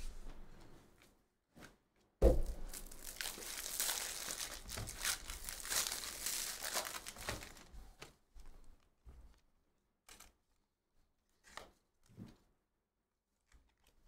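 A Panini Donruss basketball hobby pack's wrapper being ripped open and crinkled, starting with a sharp tear about two seconds in and going on for several seconds. It ends in a few soft clicks as the cards are handled.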